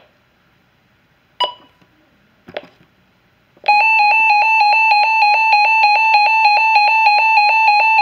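Reecom R-1650A weather alert radio being set off: a short button beep and a click, then a little under four seconds in its siren alert test starts, a loud, rapidly pulsing electronic alarm on two steady pitches.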